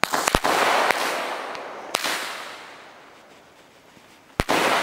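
A bundle of firecrackers tied together with gas lighters going off. A quick cluster of sharp bangs comes right at the start, another crack about two seconds in and a second loud bang near the end. Each burst is followed by a long, fading rush of noise.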